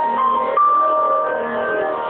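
Background music: a melody of held notes, each changing to the next about every half second.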